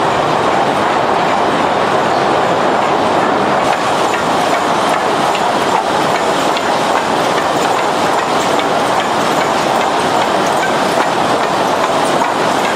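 Lumber grading line running: chain transfer conveyors carrying timber boards, a steady mechanical rattle with light clicks.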